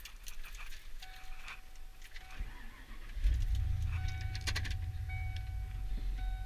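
Ford F-150 pickup started from inside the cab: keys click in the ignition and a thin dashboard warning chime tone sounds. About three seconds in the engine catches with a jump in level, then runs steadily.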